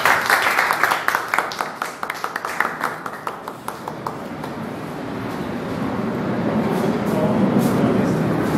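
A group of people clapping, the claps thinning out and stopping about three and a half seconds in. Then a roomful of people talking over one another, growing louder toward the end.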